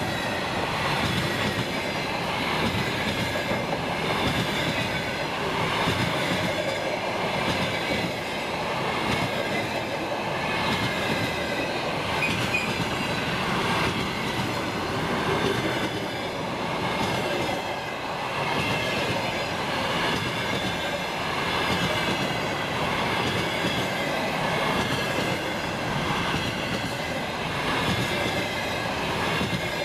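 Container freight train rolling past on the main line: a steady rolling rumble of wagon wheels on the rails that swells slightly every couple of seconds, with faint high wheel squeal that comes and goes.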